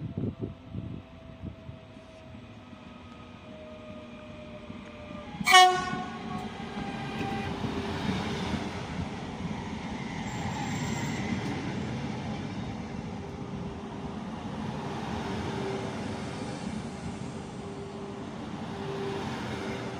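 Double-deck regional electric multiple unit approaching with a faint falling whine, sounding a short, loud horn blast about five seconds in. It then passes close by with a steady rush of wheels and air and a humming motor tone.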